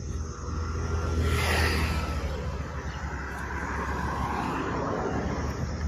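Cars passing on a road, one swelling up and fading about a second and a half in and another softer later, over a steady low rumble.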